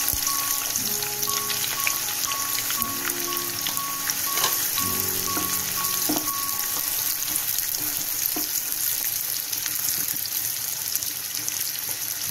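Sliced onions sizzling in hot oil in a kadhai, a steady dense crackle as they begin to fry, with a few knocks of the wooden spatula as they are stirred.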